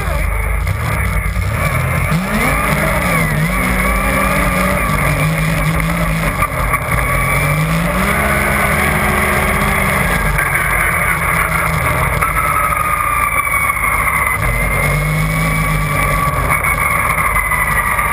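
Yamaha Nytro RTX SE snowmobile's four-stroke three-cylinder engine running under way, its revs rising and falling again and again as the throttle changes, over a constant low rumble and a steady high whine.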